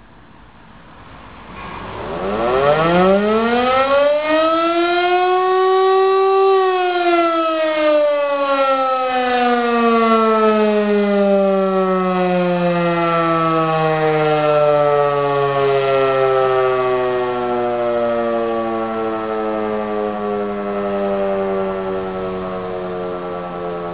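E57 electro-mechanical motor siren sounding a short test signal. Its howl starts about two seconds in and winds up quickly to its highest pitch about four seconds later. The motor then coasts down slowly, the pitch falling steadily and the siren still running down at the end.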